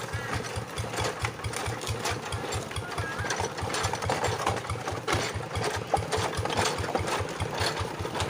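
Two-wheel hand tractor's diesel engine running at a steady chug, about six or seven low beats a second, with light rattles and clicks over it.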